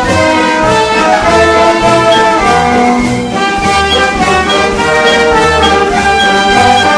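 Background music with brass instruments (trumpet and trombone) playing a melody over a steady bass pulse.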